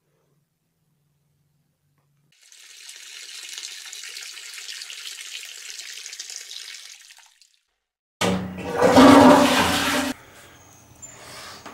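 A stream splashing into a toilet bowl for about five seconds as a man urinates, then a loud toilet flush rushing in about eight seconds in and cutting off abruptly after two seconds.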